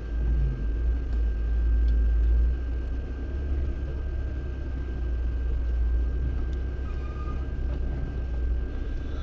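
Inside the cabin of a 2024 Lada Niva Bronto driving on an unpaved track: a steady low engine and road rumble, a little heavier in the first two or three seconds, with a faint steady high whine.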